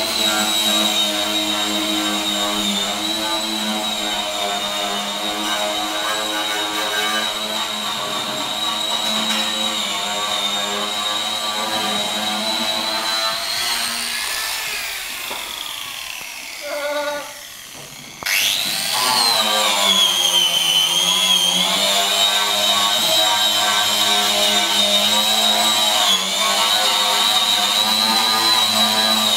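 Power grinder running with a steady high whine. About halfway through it winds down and nearly stops, then starts again suddenly, its pitch rising, sagging for a couple of seconds and settling back to the steady whine.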